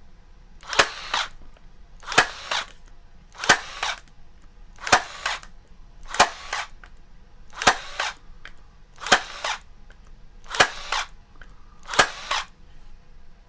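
Arrow T50DCD cordless electric staple gun firing staples into a 2x4, nine single shots about a second and a half apart. Each shot is a sharp snap with a brief noisy burst of about half a second.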